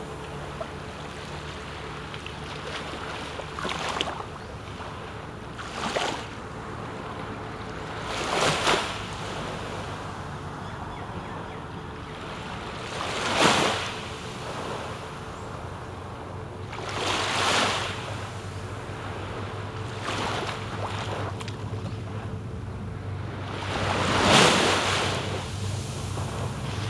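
Small waves washing onto a sandy beach, a soft swash every few seconds, the last one the loudest, over a steady low hum.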